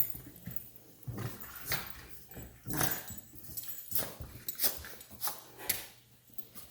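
A large German shepherd–wolf dog making a string of short growls and grumbles.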